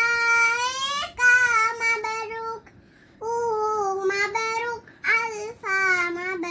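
A young girl singing solo, holding long, steady notes in short phrases with brief breath pauses, the longest about three seconds in.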